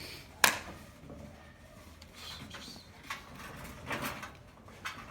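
Light knocks and scuffling, with one sharp knock about half a second in and a couple of fainter ones later.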